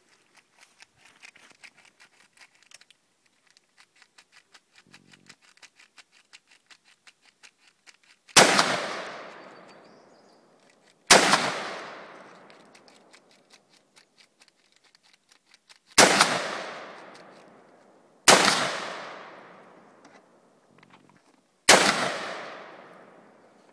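Five single shots from an AR-15 rifle, fired a few seconds apart starting about eight seconds in, each a sharp crack followed by a long echo that fades over about two seconds.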